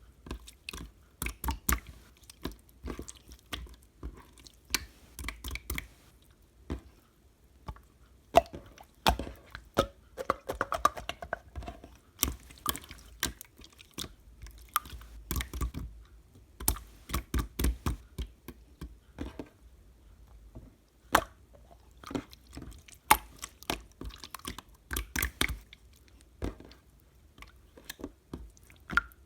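Slime being squished and poked by hand, making irregular sticky clicks and pops.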